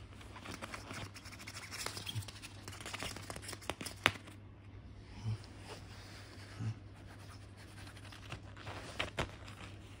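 A kitten's claws scratching and scrabbling on a cloth bedsheet as it pounces at a plastic cable tie being dragged across it, with soft rustling of the fabric. A few sharp clicks stand out, the loudest about four seconds in and two more close together near the end.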